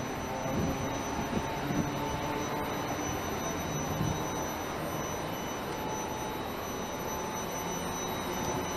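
Steady electrical and mechanical hum of a streetcar standing at a tram-stop platform, with faint steady whining tones over it. A few soft knocks come between one and two seconds in and again around four seconds in.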